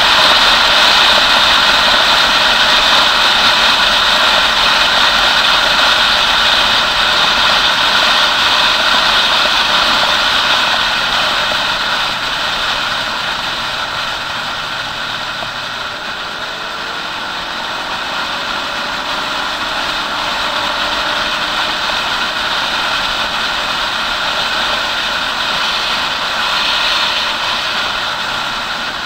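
Motorcycle being ridden at road speed: wind rushing over the camera microphone, with the bike's engine running underneath. The noise eases a little toward the middle and picks up again.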